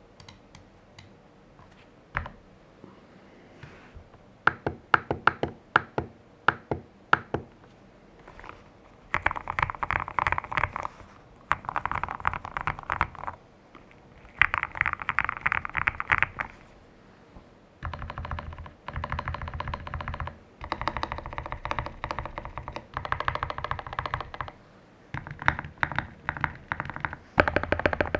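Mechanical keyboard typing on a tape-modded GMK67 with Akko Jelly Black linear switches and Durock v2 stabilizers. A few scattered single key presses give way to slow, evenly spaced presses, then to fast typing in bursts of a second or two with short pauses between them.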